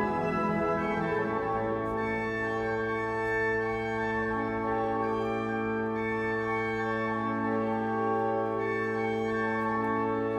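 Church pipe organ playing a full sustained chord over a held bass note, the upper notes changing slowly every few seconds.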